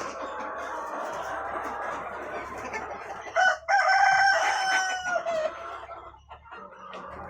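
A flock of Rhode Island Red and Black Australorp chickens clucking, and about three and a half seconds in a rooster crows loudly, one call lasting about two seconds with a short break near its start and a slight drop in pitch at the end.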